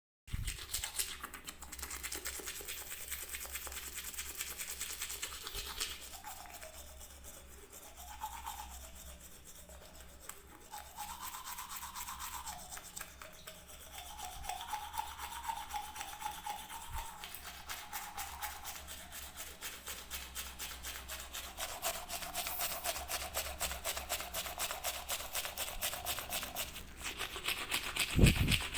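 Toothbrush scrubbing teeth in rapid, regular back-and-forth strokes, with one low thump near the end.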